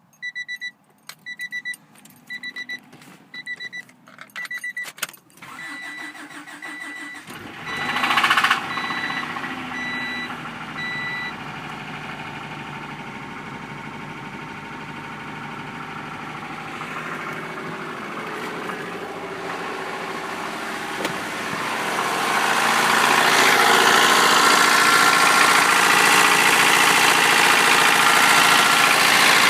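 A car's warning chime beeps about one and a half times a second among a few clicks, then the 1993 Honda Prelude's H23A1 2.3-litre four-cylinder cranks and starts about eight seconds in and runs steadily. The engine sound grows louder about three-quarters of the way through and stays up; the owner hears weird noises from it and does not know the cause.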